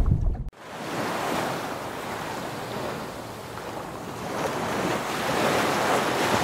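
Ocean waves surging in a steady rush that eases in the middle and swells again near the end. A music sting cuts off about half a second in.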